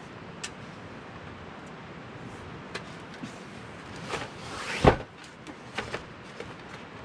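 Metal frame of a folding camp table clicking and clacking as its legs are spread open, with one louder knock about five seconds in.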